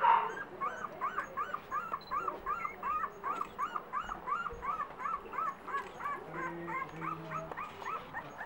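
Newborn Pembroke Welsh corgi puppy crying: a fast run of short, high, arching squeaks, about three a second, with a louder squeal at the start.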